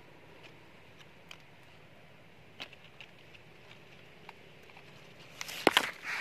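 Quiet outdoor hiss with a few faint scattered ticks, then, about five and a half seconds in, a burst of loud, close crackling rustles as leaves and twigs of the guava tree brush against the camera.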